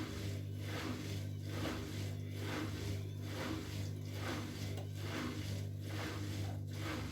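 Bosch Maxx WFL 248Y washing machine with the drum turning slowly under a steady motor hum, the laundry swishing round about once a second as the machine tries to balance an unbalanced load before spinning.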